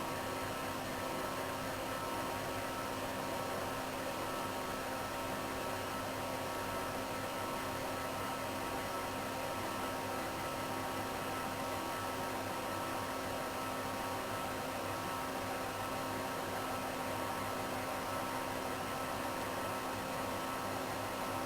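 CNC foam cutter's motors running steadily: a constant hum with a few fixed tones over a hiss.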